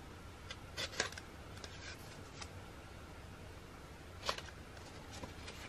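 A few brief rustles and sharp clicks of a paper mailer being handled and opened, the loudest about four seconds in, over a faint steady hum.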